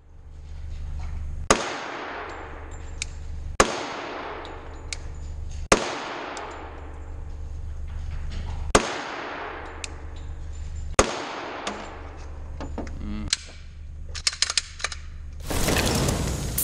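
Six single shots from a 10mm Glock 20 Gen 4 pistol fitted with a compensator, fired slowly about two seconds apart, each ringing on in the echo of an indoor shooting range. About a second before the end, a loud, different intro sound begins.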